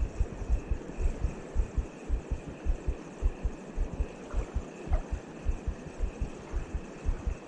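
Wind buffeting the microphone: irregular low thumps, several a second, over a faint hiss.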